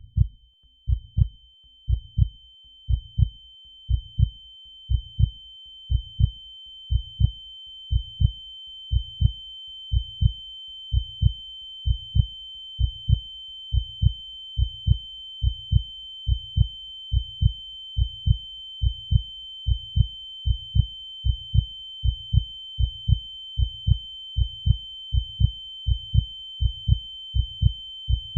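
Heartbeat sound effect: low lub-dub thumps, about one a second at first, gradually speeding up. Under it runs a steady high ear-ringing tone like tinnitus, swelling in over the first several seconds and then holding.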